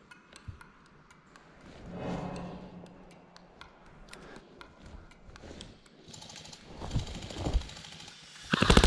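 A short, rapid burst of full-auto airsoft gunfire near the end, the loudest sound here. Before it come several seconds of faint scattered clicks and rustling.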